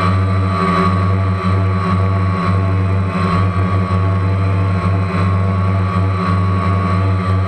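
Multirotor drone's electric motors and propellers running steadily while it hovers, heard up close from its own camera: a loud, even hum with a steady higher whine.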